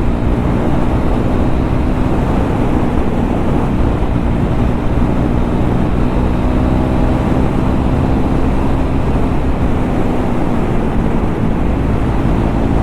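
KTM Duke 390 single-cylinder engine running with its dB killer removed, the motorcycle cruising at a steady, low speed with no revving.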